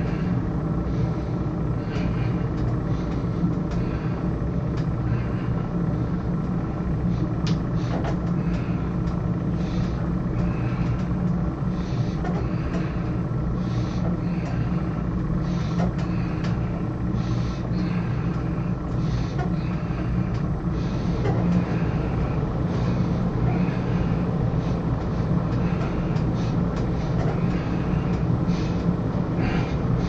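Steady low mechanical hum with a few level tones, and soft puffs of breath about once every second or so from a man working out on a cable weight machine.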